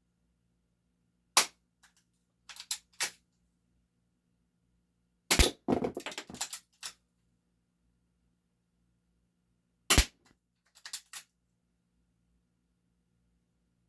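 Spring-powered airsoft pistol (Game Face M311 full-metal 1911 replica) firing three single shots about four seconds apart, each a sharp snap. Each shot is followed within a second by a few fainter clicks and knocks.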